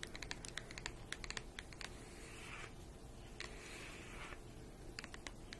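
Long fingernails tapping quickly on the pages of a colouring book, a rapid run of light clicks. In the middle there are two stretches of soft scratching or rubbing on the paper, and then a few more taps near the end.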